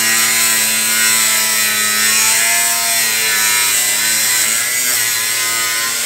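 Angle grinder with a cutting disc slicing through sheet steel, a loud steady whine over a hissing grind, the pitch wavering a little as the disc is worked along the cut.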